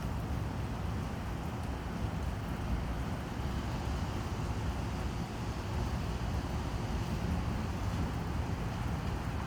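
Steady outdoor background noise: a low rumble under an even hiss, with no distinct drips or other events standing out.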